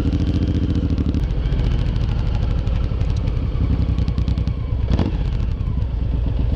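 Suzuki Boulevard M109R's big V-twin engine running steadily with a deep, even pulse as the bike rolls along at low speed. A brief knock is heard about five seconds in.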